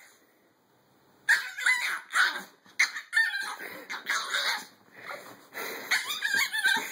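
Chihuahua growling in play-fighting with a larger dog, a rapid string of short rough bursts starting about a second in.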